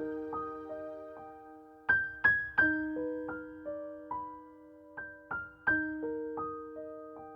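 Background music: a gentle electric piano melody of struck notes, each ringing and fading, in a repeating phrase.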